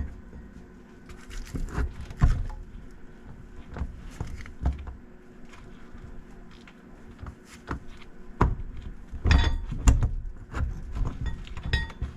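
Scattered metallic clinks and knocks of tools and a bolt against steel parts, busiest near the end with some short metallic ringing, as a bolt is worked into place on a Lada Niva's transfer case coupling.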